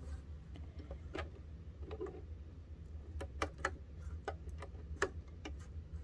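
Scattered light clicks and taps, a few seconds apart and uneven, as fingers and nails handle the thread at a Singer sewing machine's needle and presser foot while rethreading it, over a faint low hum.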